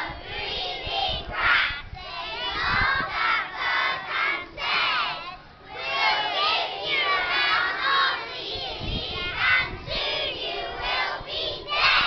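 A large group of young children speaking together in unison, many voices chanting the lines of a poem at once.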